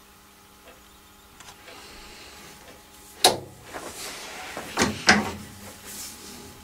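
A faint steady hum with soft ticks about once a second, then rustling and three loud sharp knocks and scrapes, typical of metal parts or tools being handled at a lathe.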